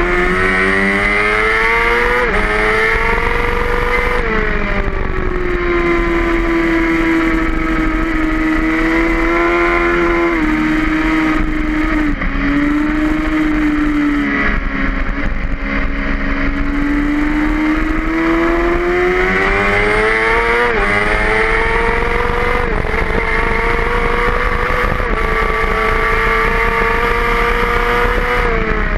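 Racing motorcycle engine heard from an onboard camera at track speed, its pitch climbing under acceleration and snapping down at quick upshifts, then falling away under braking and downshifts. There is a burst of rapid upshifts about two-thirds of the way through, and the revs drop near the end.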